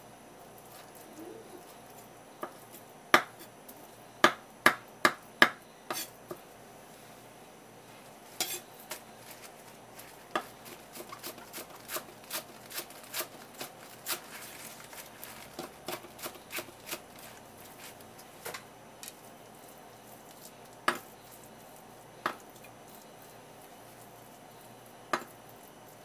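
Kitchen knife chopping on a wooden cutting board, mincing raw tuna and slicing green onions: sharp knocks of the blade on the board. A few hard strikes come a few seconds in, then a run of quicker, lighter chops in the middle, then a few single knocks near the end.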